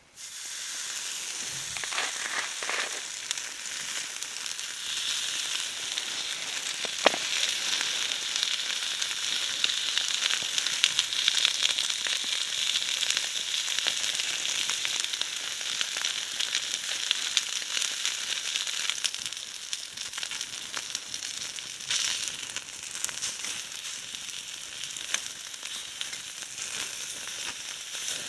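Food frying in a hot pan: a steady sizzle that starts suddenly as the food goes in, with a few louder pops.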